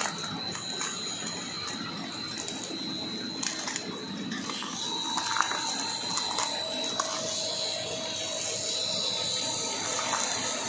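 Food extruder line for filled snacks running: a steady mechanical noise with a thin high whine and scattered clicks, a lower steady tone joining about six seconds in.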